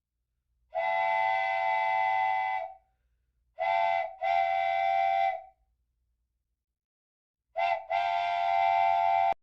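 A steam whistle blows three long, steady blasts of several tones at once. The second and third blasts each follow a short toot.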